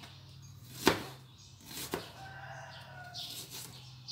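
Kitchen knife slicing through an onion and knocking on a plastic cutting board: a sharp knock about a second in, a softer one a second later, and another at the very end.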